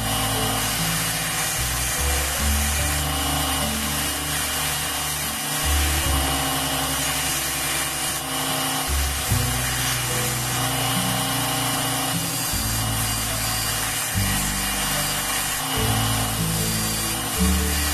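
Belt grinder running, its abrasive belt grinding a steel knife blade in passes, under background music with a bass line that steps through changing low notes.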